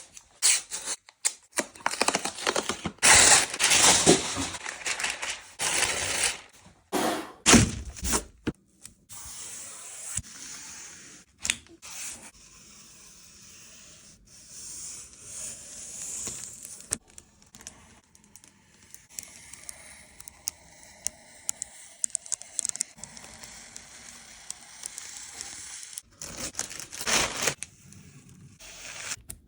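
Irregular scraping and rubbing strokes with scattered sharp clicks: loud for the first several seconds, quieter through the middle, louder again near the end, with several abrupt breaks.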